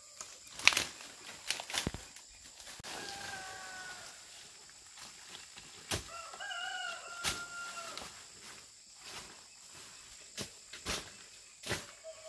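Machete chopping through weeds and pineapple leaves: sharp, irregular cuts and rustles. A rooster crows twice in the background, the longer crow in the middle.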